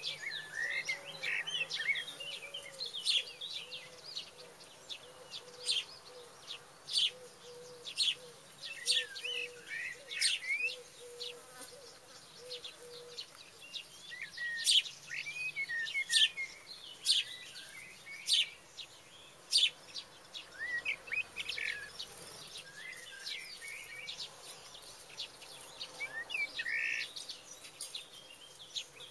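Small birds chirping and calling: a busy run of short, sharp chirps and brief warbled notes, with no steady rhythm.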